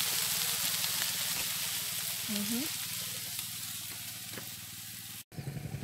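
Fish and sliced potatoes sizzling on foil on a hot grill. The steady hiss slowly fades and cuts off near the end.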